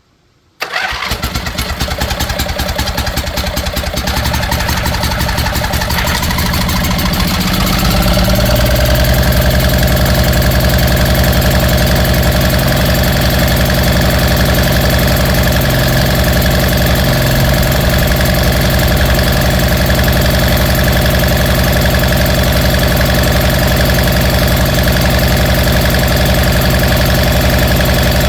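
Briggs & Stratton 23 hp Intek small engine, rebuilt on its damaged, reused internals, running: it comes in abruptly, climbs in speed between about four and eight seconds in, then holds a steady high speed.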